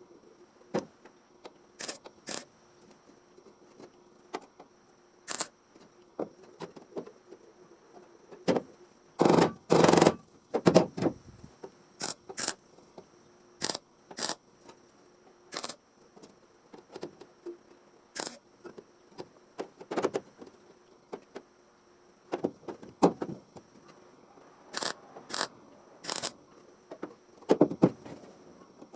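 Irregular sharp clicks and knocks, with louder clattering clusters around the middle and near the end.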